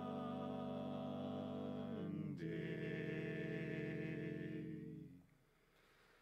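Male barbershop quartet singing a cappella in four-part harmony: a held chord, a quick break into a second sustained chord about two and a half seconds in, which fades out about five seconds in into a near-silent pause.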